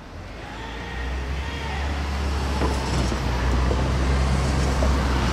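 Motor vehicle engine rumbling steadily, growing louder over the first couple of seconds and then holding.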